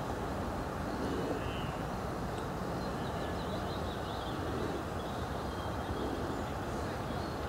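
Steady wind noise buffeting the microphone, with a few faint high chirps.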